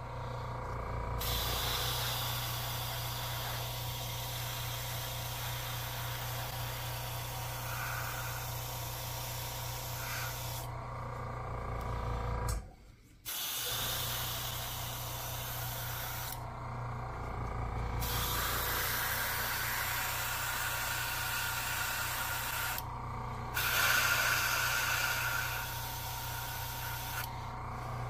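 Gravity-feed airbrush spraying paint in a steady hiss, stopping for a second or so several times as the trigger is let off, over a low steady hum. The sound cuts out completely for under a second about halfway.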